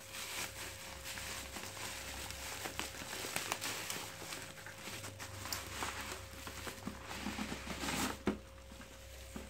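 Plastic bubble wrap and parcel wrapping crinkling and rustling as it is pulled open by hand, with many small crackles; the rustling dies down about eight seconds in.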